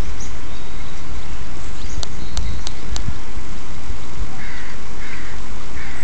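Phone zoom buttons clicking four times in quick succession about two seconds in, over a steady low rumble of wind on the microphone. Three short gull calls follow near the end.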